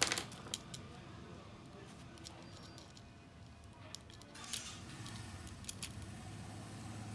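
Scattered small clicks and taps of tools and phone parts being handled while a smartphone is reassembled, the sharpest click at the very start and a brief rustle about four and a half seconds in, over a low steady hum.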